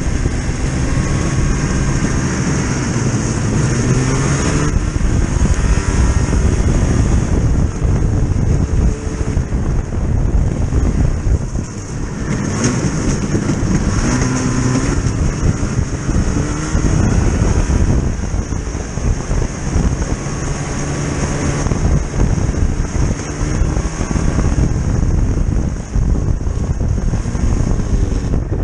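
A vehicle engine running loudly and continuously, its pitch rising and falling every few seconds as it speeds up and slows.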